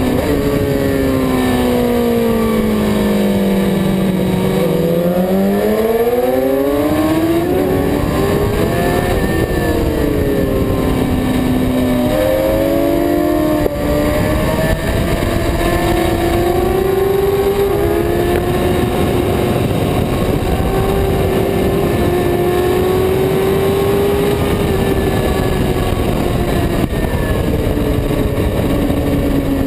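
Superbike engine at track speed under heavy wind rush. Its pitch falls for the first few seconds as the bike slows into a corner, then rises sharply as it accelerates out, and dips and climbs again at the following turns.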